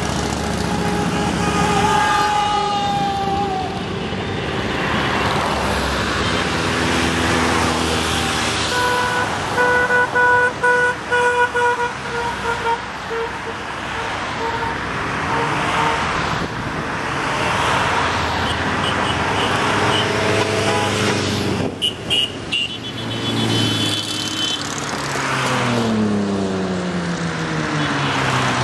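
A stream of motorcycles and cars driving past one after another, engine and tyre noise swelling and fading with each pass. About nine seconds in a vehicle horn toots in a quick series of short blasts, and there is another short burst of toots a little after twenty seconds; near the end a passing engine drops in pitch as it goes by.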